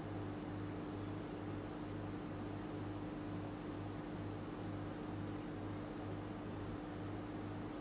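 Steady electrical hum with an even hiss, its low part pulsing softly about twice a second; no distinct handling sounds stand out.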